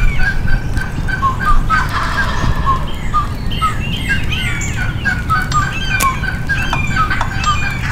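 Wild turkeys gobbling from the roost at first light, with a rough gobble about two seconds in. Songbirds call all through it in a dawn chorus, one repeating short whistled notes over and over.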